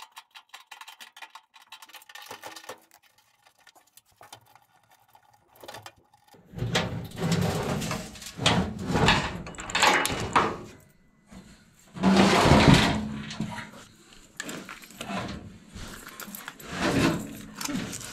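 A run of light, rapid clicks as the blower's mounting screws are worked loose, then loud scraping and rattling of sheet metal in several pushes as the furnace's blower (squirrel-cage) assembly is dragged out of its cabinet.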